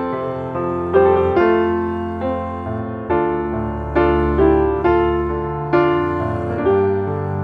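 Background music: slow, gentle piano playing, with a new note or chord struck about once a second and each one fading out.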